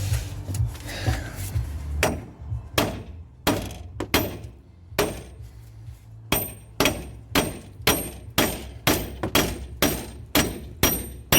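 Hammer blows driving a 2004 Saab 9-3's front hub and bearing assembly out of its housing. A few spaced strikes come first, then a steady run of about two strikes a second, each with a metallic ring.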